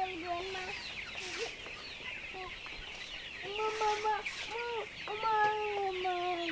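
A flock of Giriraja chickens calling: drawn-out, wavering calls, coming several in a row from about three and a half seconds in, over a constant chatter of high peeps.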